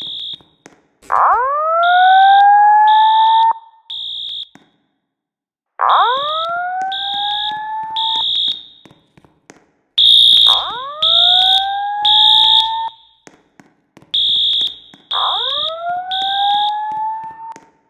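Fire alarm voice-evacuation system sounding its alarm tone during a test. Four rising whoops, each about two and a half seconds long, alternate with short high-pitched beeps in groups of three.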